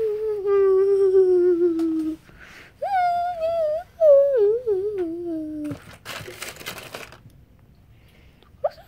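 A child's voice making long, drawn-out ghost moans, three in all, each sliding down in pitch and the last one wavering. A short rustle of handling follows about six seconds in.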